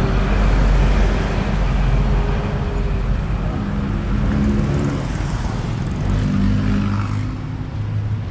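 Street traffic: engines of vans, pickups and motorbikes running and passing close by, with a deep rumble loudest at the start that eases off, and engine notes that rise and fall as vehicles move.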